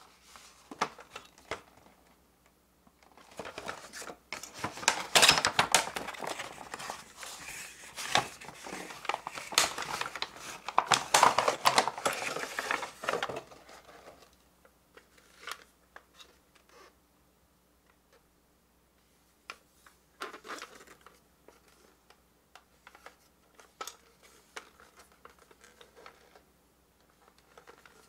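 Cardboard box and packaging being handled as a plastic toy sewing machine is unpacked: about ten seconds of dense crinkling and scraping, then scattered light clicks and knocks of the plastic toy being handled and set down.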